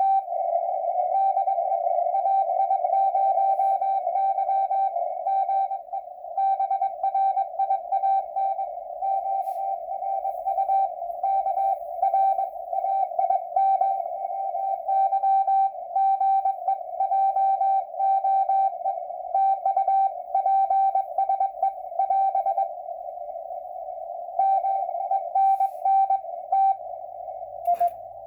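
Morse code (CW) heard on an amateur radio receiver: a steady mid-pitched tone keyed on and off in dots and dashes over narrow-filtered band hiss. The keying stops for about two seconds near the end, leaving only hiss, then resumes.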